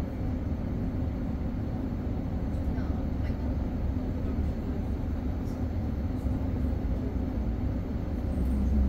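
Scania Higer Fencer F1 Integral battery-electric bus running: a steady low rumble with a few faint ticks and rattles, growing a little louder near the end.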